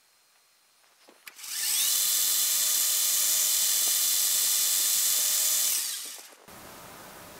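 Metal lathe starting up, its whine rising as the chuck spins up about a second and a half in, then running at a steady high-pitched whine and winding down with a falling pitch near the end.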